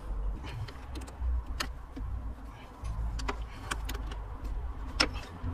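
Scattered sharp metallic clicks and taps, about five, as a hand works the throttle linkage at a carburettor, over a steady low rumble.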